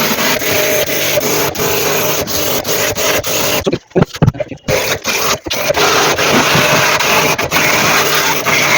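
High-pressure jet pump washer spraying water: a loud, steady hiss of spray over a faint motor hum, cutting out briefly a few times, with a longer break near the middle.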